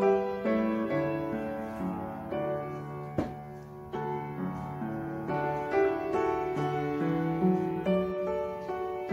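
Background piano music, single notes played one after another, with one sharp click about three seconds in.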